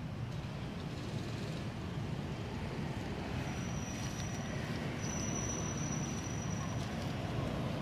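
Steady low rumble of outdoor background noise, with a thin high-pitched steady whine from about halfway through until near the end.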